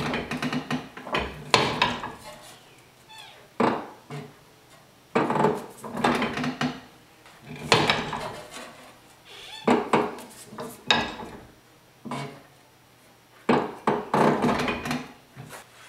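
Sheet-steel patch panel knocking and clanking against the steel sheet-metal brake as it is handled and formed by hand. It comes as a string of separate clanks, some in quick pairs, each with a brief metallic ring.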